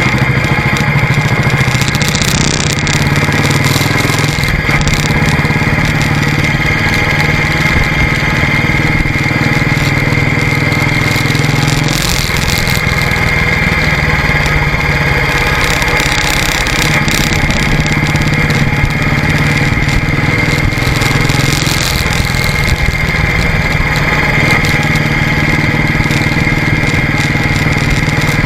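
Royal Enfield motorcycle engine running under way, loud and steady, its low note shifting in pitch a few times along the ride.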